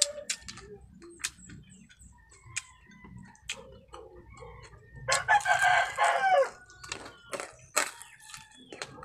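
A rooster crows once about five seconds in, one call of about a second and a half that falls at its end. Short crisp crunches and clicks of fried baby crab being chewed run around it.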